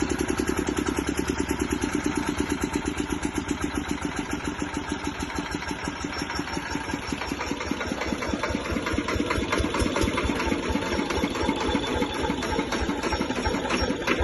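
Diesel generator set's engine running steadily, with an even rapid chugging beat.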